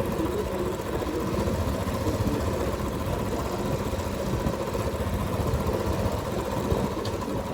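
Steady idling engine and street traffic noise, picked up through a wireless earbud's microphone.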